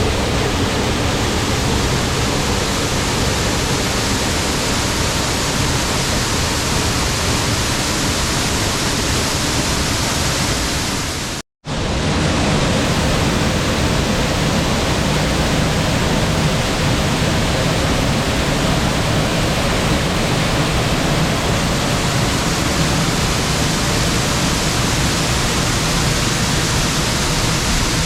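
Waterfall: a steady rush of falling water. It cuts out completely for a fraction of a second about eleven seconds in, then resumes.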